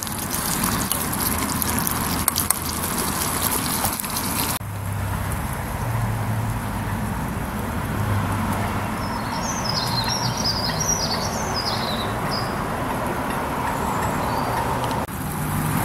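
A pan of bacon, sausages and mushrooms sizzling over a gas stove for the first four and a half seconds, then steady road traffic with a low hum. A small bird chirps a quick run of notes about nine to twelve seconds in.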